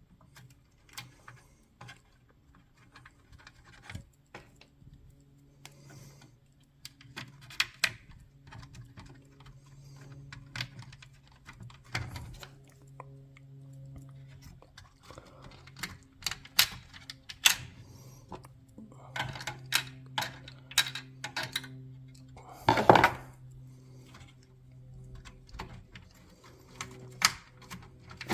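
Small metal screws being turned in by hand with a screwdriver on a garage door opener's control board: scattered light clicks, clinks and scrapes of screws and tool, with a louder brief rattle near the end. A faint steady low hum runs underneath.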